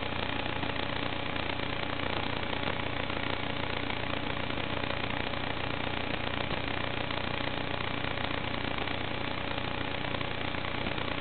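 Steady static hiss with a few faint unchanging hum tones, the audio channel of an analog FPV video link recorded on the goggles' DVR. It does not change pitch or level as the quadcopter dives and turns.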